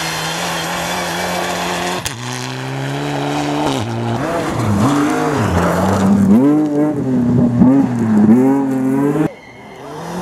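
Rally car engines at full throttle on a snow and gravel stage, in several short clips cut together. The engine note is steady at first, then rises and falls over and over with gear changes and lifts, before it cuts off suddenly near the end.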